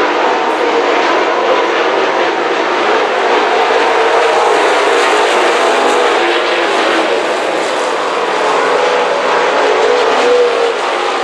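Dirt late model race cars lapping a clay oval at speed. Several V8 engines blend into one loud, steady drone whose pitch wavers as the cars go through the turns and down the straights.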